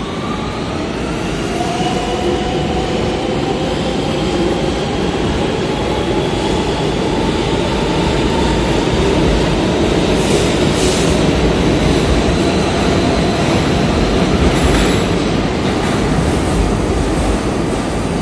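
New York City subway M train accelerating out of the station past the platform. The traction motors' whine climbs in pitch over the first several seconds while the rumble of wheels on rail builds, and a few sharp wheel clacks come past the middle.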